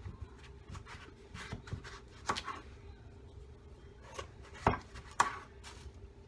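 Knife cutting into an unripe green papaya: irregular knocks and scrapes, loudest about two seconds in and twice near the end.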